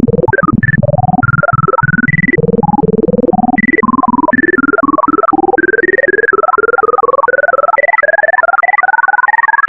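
Computer-generated sonification of the heapsort algorithm: a rapid stream of short synthesized beeps, roughly ten a second, whose pitches stand for the values being compared and moved. Low notes climb steadily in pitch across the stretch while higher notes hop about between them.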